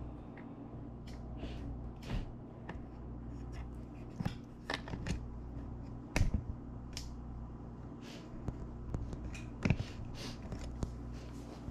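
Handling noise from a hand-held camera being moved around a room: scattered light clicks and rustles over a steady low hum, with a couple of sharper knocks about six and nearly ten seconds in.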